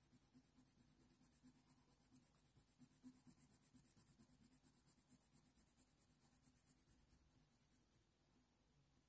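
Faint, quick back-and-forth scratching of a white Faber-Castell Polychromos coloured pencil pressed hard on hot-press watercolour paper, several strokes a second, tapering off near the end. The pencil is burnishing the light fur areas and flattening the paper's tooth.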